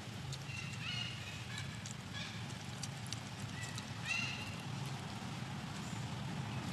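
Baby long-tailed macaque giving a handful of short, high-pitched whimpering calls, the clearest about four seconds in, over a steady low background hum.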